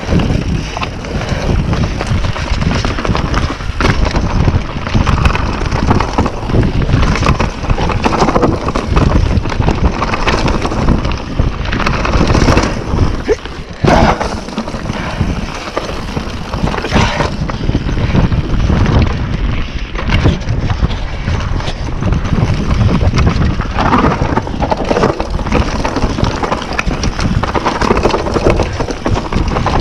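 YT Capra mountain bike ridden fast downhill over a rough trail: knobbly tyres rolling over dirt, leaves and loose stones, with frequent knocks and rattles as the bike takes bumps, and wind on the microphone.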